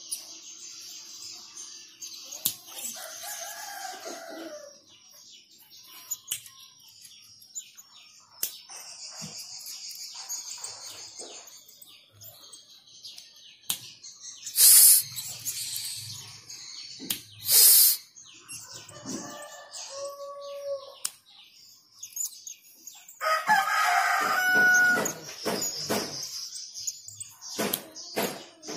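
Blue-crowned hanging parrot giving thin, high-pitched chirps on and off, while roosters crow in the background, the loudest crow lasting about two seconds near the end. Two short, loud harsh bursts come about halfway through.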